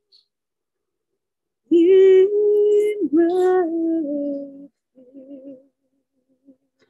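A single voice singing a slow melody. It enters about two seconds in with held notes that step down in pitch, then a softer short phrase follows.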